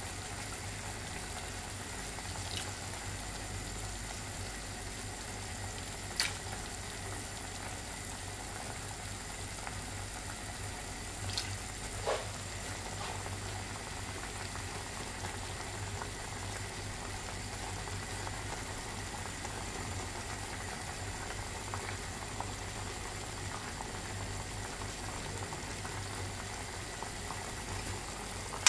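Pork ribs simmering in broth in a stainless steel pot, a steady bubbling hiss, with a few short clicks of a metal spoon and sauce bottle against the pot.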